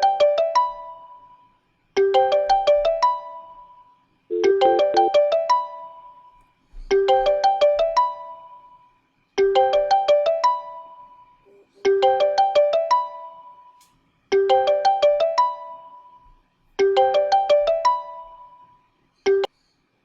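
Telephone ringtone for an incoming call: a short melodic phrase of quick bright notes ending on a held note, repeated about every two and a half seconds, eight times, then cut off just after a ninth begins near the end.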